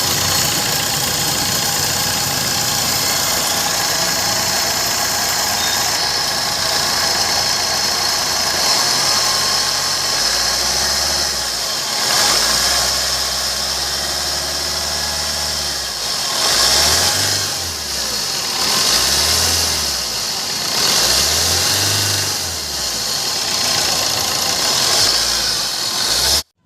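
Maruti Suzuki Swift VDI diesel engine running with a steady grinder-like 'sar sar' whir from the AC compressor pulley bearing, whose grease has dried out. The engine is revved briefly a few times in the second half.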